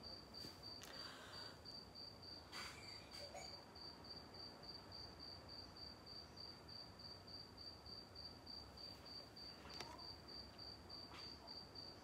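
Faint insect chirping: a steady run of short, high, evenly spaced pulses that keeps going throughout.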